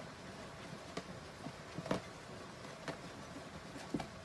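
Five sharp soft knocks, about one a second, over a faint steady hum.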